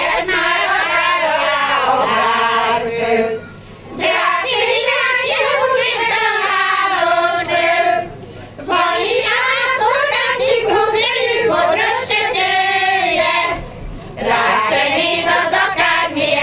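Women's folk choir singing a Hungarian folk song together, in long phrases of about four seconds with short breaks for breath between them.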